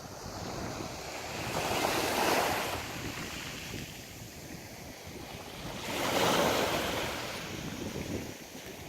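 Sea waves washing in on the shore, two swells building and falling away about two and six seconds in, with wind buffeting the microphone.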